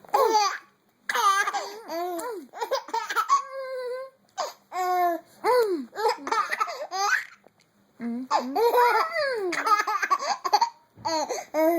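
A young child laughing: a long string of high-pitched laughs and squeals, broken by a few short pauses.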